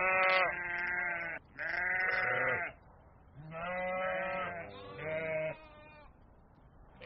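Goats bleating: four long calls one after another, the last one shorter, then quieter from about six seconds in.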